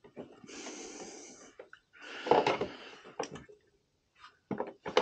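Breath-like exhales close to the microphone, the loudest about two seconds in, with a couple of light clicks from a screwdriver and small metal burner parts being handled.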